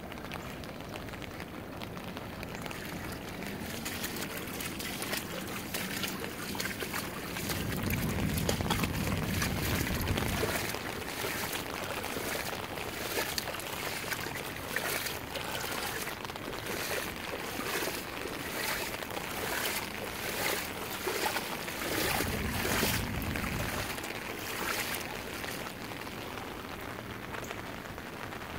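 Footsteps splashing and sloshing through shallow floodwater over grass, a few steps a second, with wind buffeting the microphone in two low rumbling gusts.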